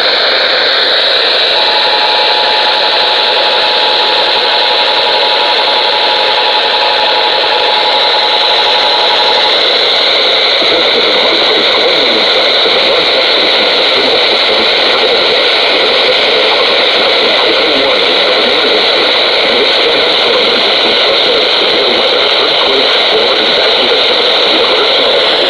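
AM radio reception under heavy, steady static hiss. About two seconds in, the Emergency Alert System attention signal sounds for about eight seconds: two steady tones played together, the tone that opens an alert, here a Required Monthly Test.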